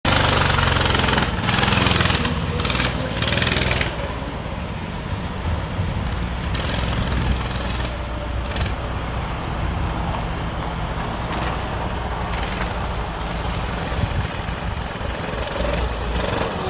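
Off-road go-kart's 196cc single-cylinder four-stroke engine running, loud and close for about the first four seconds, then steadier and quieter as the kart drives off.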